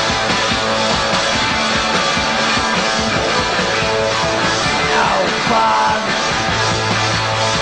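Loud punk rock instrumental break, with guitars, bass and drums playing and no vocals. About five seconds in, a note slides down in pitch.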